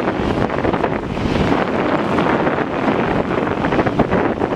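Wicker basket toboggan sliding fast down an asphalt street on its wooden runners, a steady rough scraping noise, with wind buffeting the microphone.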